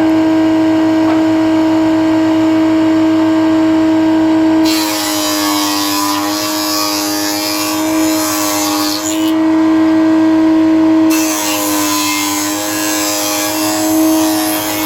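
CNC router spindle running with a steady high whine. From about five seconds in, a harsher hiss of cutting joins it, breaks off briefly around nine seconds and returns, and the whine's pitch sags slightly while the bit is cutting under load.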